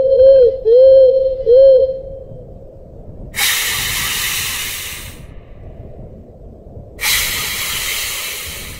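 Rabbit repellent sound track. A steady mid-pitched tone dips and rises three times and stops about two seconds in. Then come two long hisses, each lasting under two seconds.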